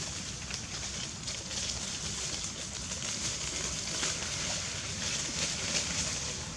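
Steady forest background: a high, even insect drone over a low rumble, with small scratchy ticks throughout.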